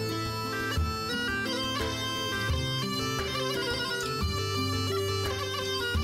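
Background score music: a reedy wind melody moving in held notes over a steady low drone, in the manner of a bagpipe.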